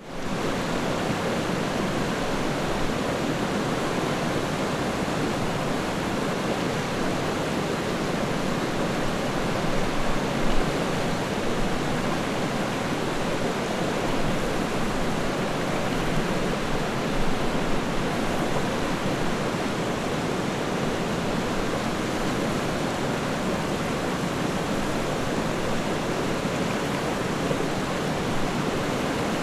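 River water flowing: a steady, even rush of water that fades in quickly at the very start.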